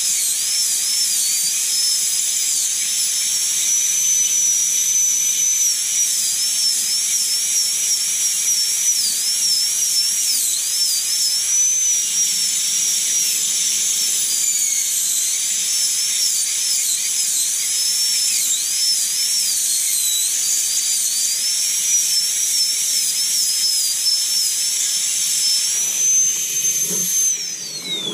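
Pneumatic air scribe working the rock off an ammonite: a steady high-pitched whine whose pitch wavers up and down throughout, falling and cutting off at the very end.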